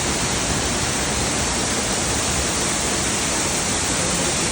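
Neer Waterfall's water falling and splashing in a steady, unbroken rush.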